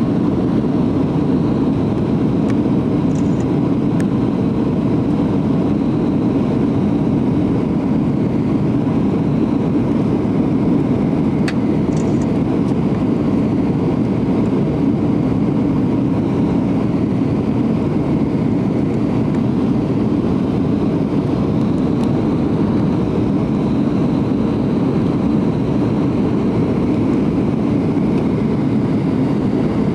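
Steady roar inside the passenger cabin of a Boeing 737-700 on approach with flaps extended: its CFM56-7B turbofan engines and the rushing airflow.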